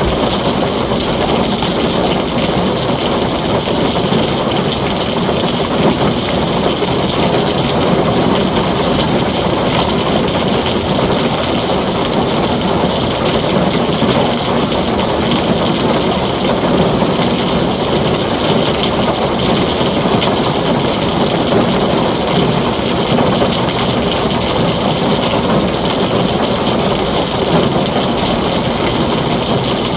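Heavy rain pouring steadily on a tin roof, an even, unbroken rush with no thunder claps.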